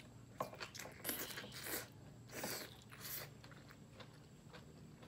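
Close-miked crunchy chewing of a grilled beef roll wrapped around enoki mushrooms and bell pepper strips. There is a sharp bite about half a second in, then irregular crunches over the next few seconds, and the chewing grows quieter near the end.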